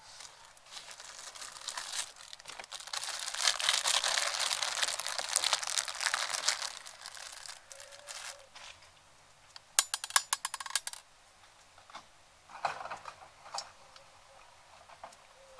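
Crinkling and rustling, like fabric or plastic being handled, for most of the first half. This is followed by a quick run of sharp clicks a little after the middle and a couple of short rustles near the end.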